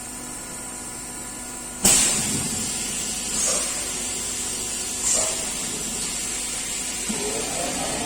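CNC panel-cutting machine starting up: a sudden rush of air and machine noise about two seconds in, then two short hisses of air. Near the end a motor whine begins, rising in pitch.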